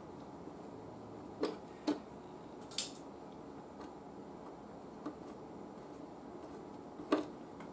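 A handful of small clicks and taps from things being handled on a workbench, one sharper than the rest about three seconds in, over a steady low background noise.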